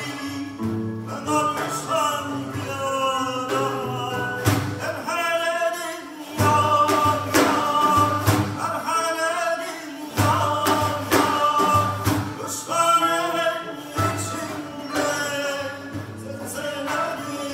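Live Iranian folk ensemble music: a male voice sings a Qashqai song in phrases of a few seconds, over frame drum (daf) strokes and plucked string instruments.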